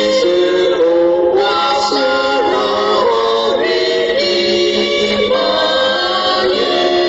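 Church choir singing a hymn a cappella, several voices in harmony holding long notes that move from chord to chord.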